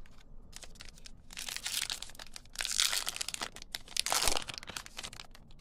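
Wrapper of a Topps Heritage baseball card pack crinkling and tearing as it is ripped open, in three bursts of rustling.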